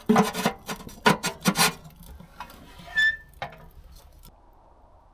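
Round metal lid scraped across the top of a tent wood stove as it is slid over the fire hole: three rasping scrapes in the first two seconds, then a short ringing clink about three seconds in as it settles into place.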